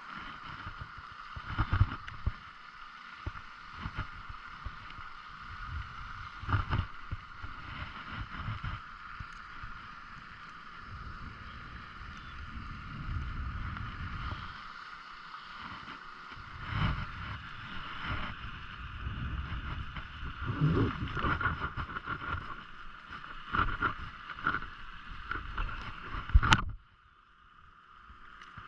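Small fishing boat on the water: irregular low thumps and rumbles of water and wind against the boat, over a steady high whine. Near the end a sharp click, after which the whine stops and it turns much quieter.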